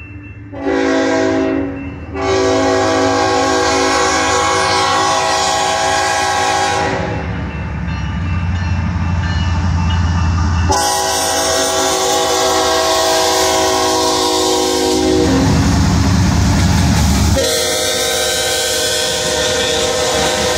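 CSX diesel freight locomotive sounding its air horn for a grade crossing: a short blast, then three long blasts. Between the later blasts a heavy low rumble from the locomotive and train as it passes close by.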